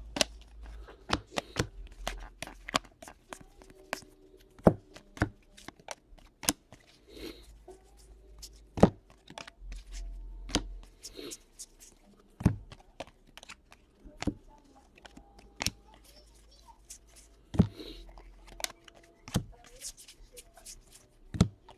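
Trading cards being handled and flipped through by hand: a string of irregular sharp snaps and taps as cards are flicked and set down on the table, with light rustling.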